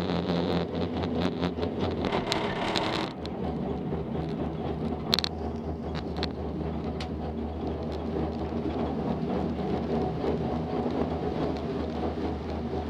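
Six-seat gondola cabin riding the haul rope past a line tower: a rumble with a rapid run of clicks as the grip rolls over the tower's sheaves, ending about three seconds in. Then a steady hum of the cabin travelling along the cable, with one sharp click about five seconds in.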